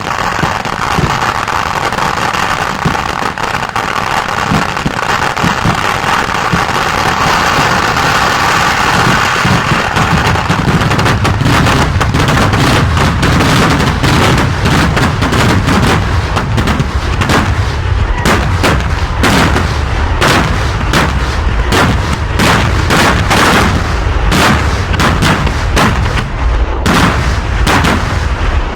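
Kerala temple fireworks: a dense, continuous crackle of firecrackers for about the first ten seconds, then a rapid barrage of heavy bangs going off in quick succession.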